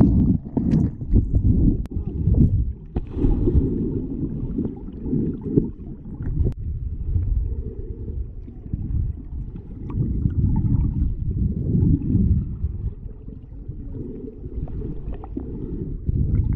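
Muffled underwater water noise picked up by a submerged camera: a low churning rumble with bubbling and a few sharp knocks in the first few seconds as swimmers stir the water near it.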